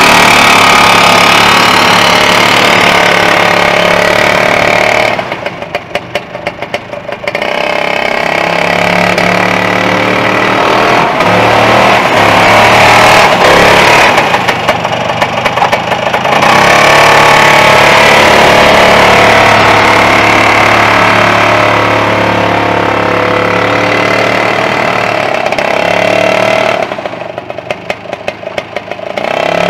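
The 1974 Snowbug Superbug's single-cylinder two-stroke Sachs engine running at high revs as the snowmobile is driven. It falls back to idle three times, when its separate firing strokes can be heard, and each time revs back up with a rising pitch.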